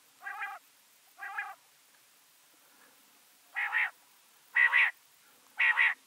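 Common quail calling. Two softer calls come in the first second and a half, then three louder ones about a second apart from about three and a half seconds in, each a quick run of two or three notes.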